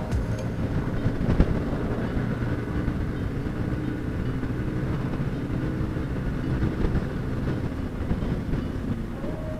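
Motorcycle engine running steadily at cruising speed, heard from the bike, with wind and road noise. A new steady tone joins near the end.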